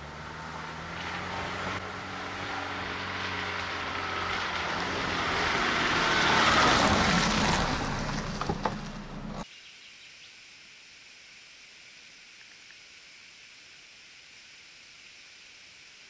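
A motor vehicle's engine and tyres coming along a gravel road, swelling to a peak about six seconds in and easing off, cut off abruptly after about nine seconds. A faint, steady, high insect drone follows.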